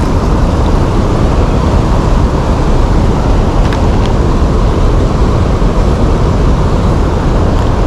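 Loud steady rush of wind buffeting the microphone, heaviest in the low end, with a couple of faint clicks near the middle.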